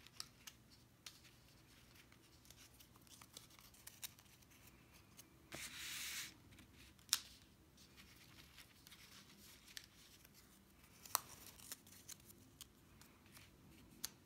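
Faint handling of cut card stock pieces on a tabletop: a short paper rustle about five and a half seconds in, two sharp taps, and a few light ticks.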